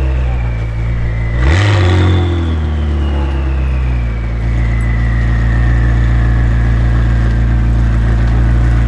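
McLaren 600LT's twin-turbo 3.8-litre V8, de-catted with Fi catless downpipes, idling loudly, with one quick throttle blip and a sharp crack about one and a half seconds in before it settles to a steady low idle. A faint high whine falls slowly in pitch throughout.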